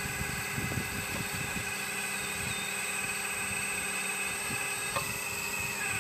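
The hydraulic pump of a 1/12-scale RC4WD Earth Digger 4200XL RC excavator running with a steady whine while the machine works, with a few low knocks in the first second and a half and a click about five seconds in. A low hum under the whine stops about four and a half seconds in.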